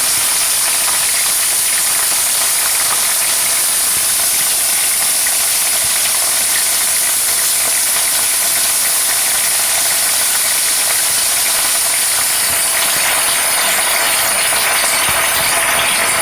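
Mixed winter vegetables (potato, cauliflower, carrot, flat beans, green beans and peas) sizzling steadily in hot oil in a pan, an even hiss. About twelve seconds in the sizzle turns rougher and more crackly.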